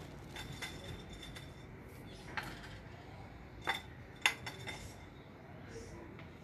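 Clay flowerpots being handled, knocking and clinking against each other and the tiles: three sharp clinks in the middle, with a few lighter ticks around them.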